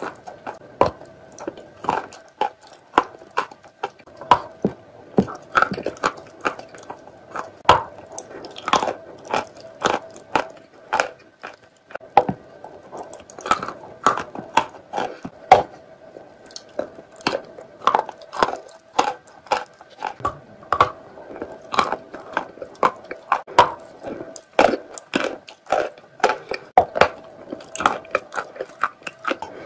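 Crunching bites and chewing into a crumbly, powdery pale-green chalk block, one to two sharp crunches a second, over a faint steady hum.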